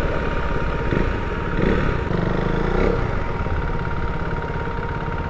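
Motorcycle engine idling, a steady, rapid low pulse, with some brief louder shifts near the middle.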